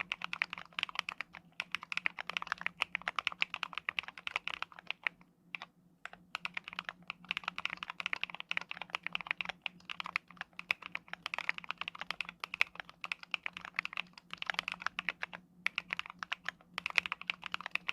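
Fast, continuous typing on a custom Mont Cervin mechanical keyboard: factory-lubed PH Studio switches under SA-profile keycaps on a polycarbonate plate, with owLab PCB stabilizers. The keystrokes come in a rapid stream with two brief pauses, one around a third of the way in and one near the end.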